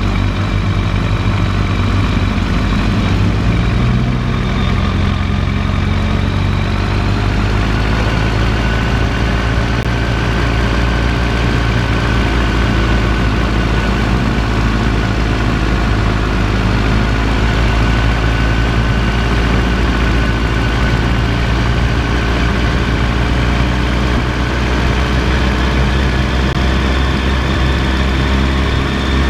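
Sport motorcycle's engine running steadily at low revs while the bike rolls slowly, heard close up from a camera mounted on the bike.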